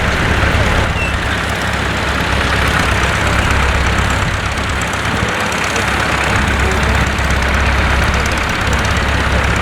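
Tractor engine running steadily at a low, even speed, with a dense outdoor hiss over it.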